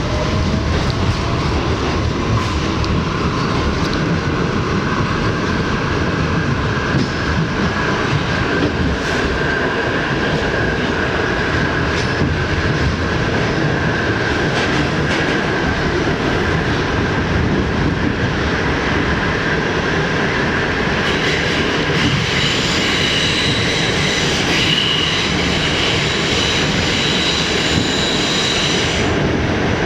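R68 subway car running along the track with steady loud rumble and rattle. A motor whine rises in pitch over the first few seconds as the train picks up speed and then holds steady. From about two-thirds of the way through, a high squeal sounds over the rumble and cuts off abruptly shortly before the end.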